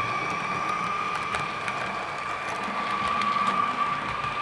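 H0-scale model train running on the layout: a steady high whine held at one pitch, with light scattered clicks of wheels over rail joints.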